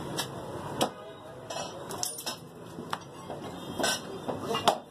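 Butcher's knife and cleaver striking a thick wooden chopping block while cutting mutton: a series of sharp knocks and clicks at irregular intervals, the loudest near the end.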